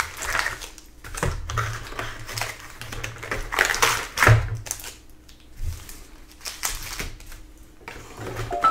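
Irregular clicking, tapping and crinkling of hands handling foil-wrapped trading card packs and the cardboard of a Panini Prizm basketball hobby box as the packs are pulled out.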